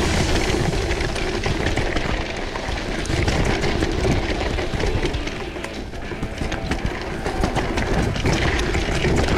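Mountain bike ridden over rough, rocky ground: continuous rattling and tyre noise with many small knocks, easing a little midway.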